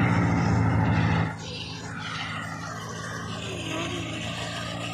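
Tractor-driven wheat thresher running with a steady drone. It is louder for about the first second and then continues more quietly.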